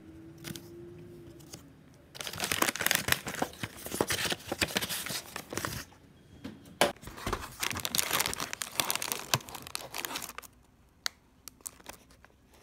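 Rustling and crinkling of crumpled kraft packing paper and cardboard as a delivery box is unpacked. The crackling is dense for several seconds, then thins to a few light crinkles and clicks of plastic wrapping near the end.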